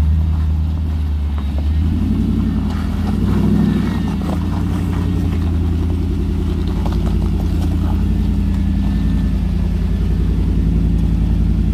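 Jeep Wrangler YJ's 6-liter engine running under load as it crawls up a steep rock-and-concrete climb, with a brief rise in revs about three seconds in.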